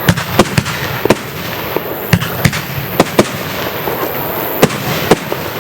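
Small aerial firework shells bursting in quick succession: about ten sharp bangs at irregular intervals, with a short lull a little past the middle, over a steady background hiss.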